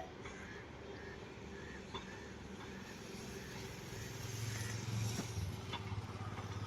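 A vehicle's low steady hum that grows louder about four seconds in, as it approaches, with short high chirps repeating in the background.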